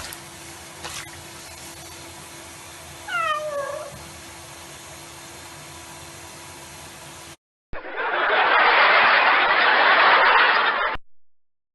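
A cat meows once, a short call falling in pitch, against faint room noise with a few light clicks. After a cut, a loud, even rushing noise runs for about three seconds and stops suddenly.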